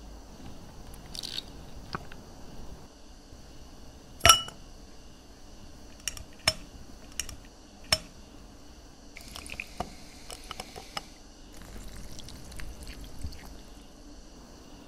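Ice balls knocking against a drinking glass as they are set in with metal tongs: a sharp ringing clink about four seconds in, then a few lighter clinks over the next few seconds. After that comes a fine crackling fizz as liquid is poured over the ice.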